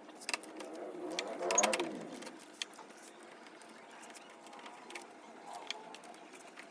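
Scattered light clicks and knocks of metal engine parts and tools being handled during disassembly, over a faint background hiss, with a brief faint voice about a second and a half in.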